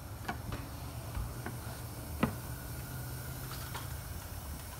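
A few faint scattered clicks and ticks over a low steady hum, with one sharper click about two seconds in.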